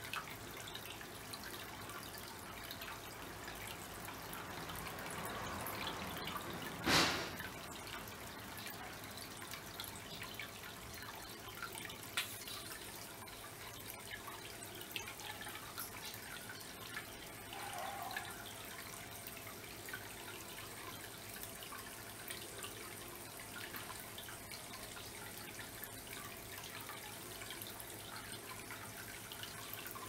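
Water from a bamboo spout trickling and dripping into a small pond, steady and soft, with one sharp knock about seven seconds in.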